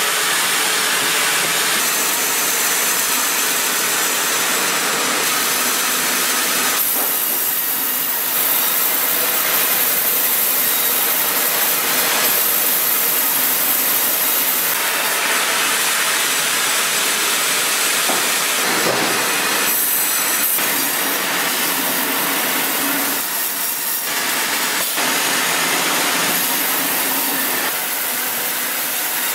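Vertical band sawmill's blade cutting lengthwise through a large rain tree log: a loud, steady, bright rushing noise of the band running through the wood, with the machine running underneath.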